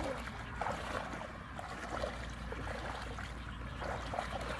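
Canal water sloshing and trickling, with small irregular splashes, over a steady low rumble.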